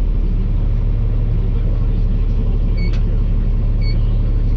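Tractor engine running steadily under load. Partway through, the round baler's monitor starts beeping, short high beeps about a second apart, warning that the baler's tailgate is open.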